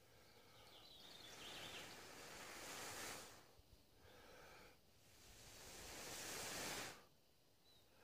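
Long, steady breaths blown into a bundle of dry grass tinder to nurse a marcasite-and-flint spark to flame, two blows each swelling for about two seconds and cutting off.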